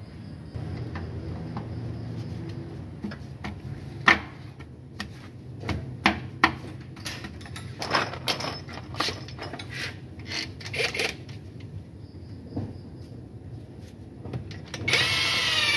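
Metal clinks and knocks of tools working on engine parts, with a power tool running briefly for about a second near the end.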